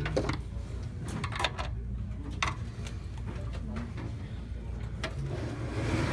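Scattered sharp clicks and light knocks of plastic and metal parts being handled inside an open desktop computer case, as its CPU cooler fan is taken off, over a low steady hum.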